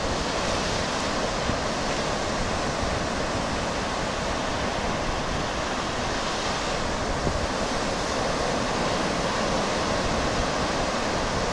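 Steady, unbroken surf noise from waves washing onto a sandy beach.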